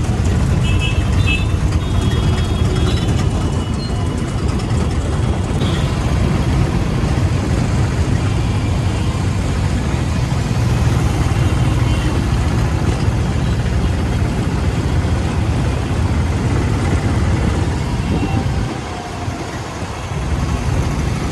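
Road traffic noise heard while travelling: a loud, steady low rumble of vehicles and moving air, with a few short high tones in the first few seconds and a brief dip in the rumble near the end.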